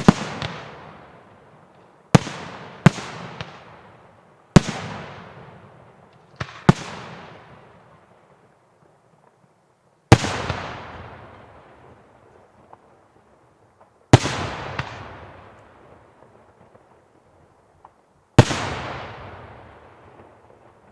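Aerial firework shells bursting with sharp bangs, nine in all, each trailing off over a few seconds. They come quickly at first, then the gaps widen to about four seconds.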